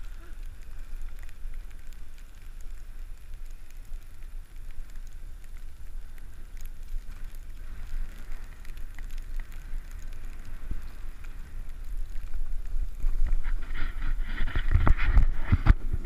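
Wind rumbling on the microphone of a camera moving down a ski slope. About three-quarters of the way through, snow scraping and hissing under the rider gets louder, with sharp crunches as the rider slows near the crowd.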